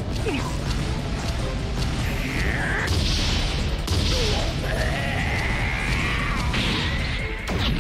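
Anime fight soundtrack: background music under punch impact effects and drawn-out, straining shouts, the longest a wavering cry held for about two seconds near the end.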